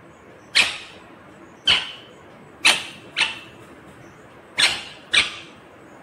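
Indian ringneck parakeet giving short, sharp, loud screeches: six calls, the later ones in quick pairs about half a second apart.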